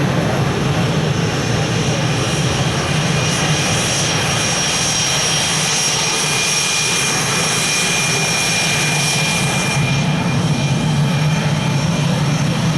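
Aircraft engine running steadily, a continuous loud roar with a faint high whine through the middle that fades out near the end.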